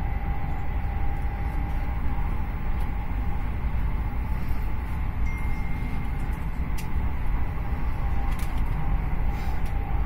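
Moving passenger train heard from inside the carriage: a steady rumble of wheels on rail and carriage noise, with a faint steady tone and a few light clicks.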